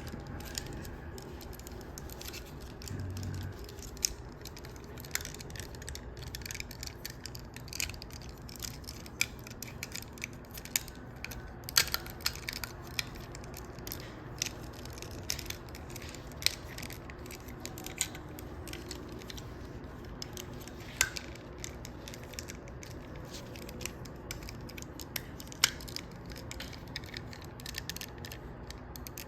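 Plastic parts of a Transformers action figure clicking and tapping as they are moved and lined up by hand, with irregular sharp clicks scattered throughout.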